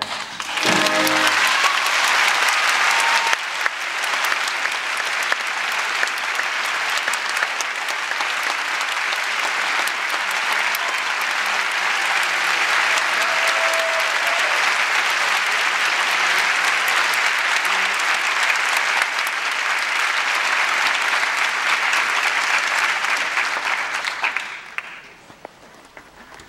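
Theatre audience applauding as the orchestra's final notes die away. The applause fades out sharply about 24 seconds in.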